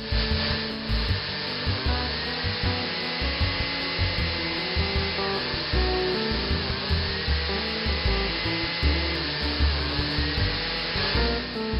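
Electric countertop blender running, churning a thick frozen-banana mix; the motor's pitch dips and recovers a few times as it works through the mix.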